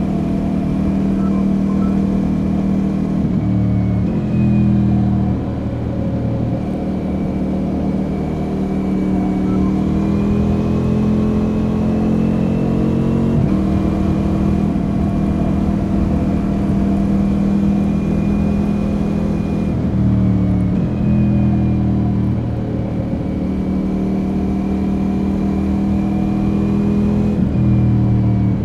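2021 Ducati Multistrada V4 S's 1158 cc V4 engine with its Akrapovic slip-on exhaust, running steadily at cruising speed in a high gear, with wind rushing past. The engine note steps up and down a few times as the throttle and gear change.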